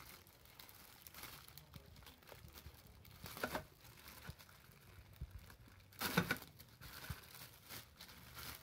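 Clear plastic bags crinkling as bagged speaker parts are handled, faint most of the time with two louder rustles, about a third and two-thirds of the way through.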